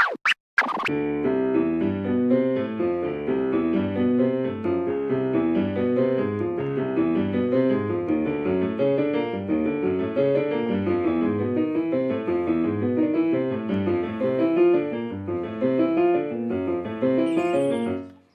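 Piano music, a continuous run of notes that stops abruptly near the end, after a few short clicks at the very start.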